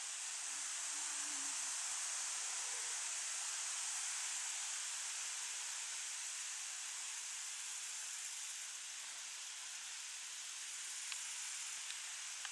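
Steady high-pitched hiss of meadow insects stridulating, swelling slightly a few seconds in and then easing, with a few faint ticks near the end.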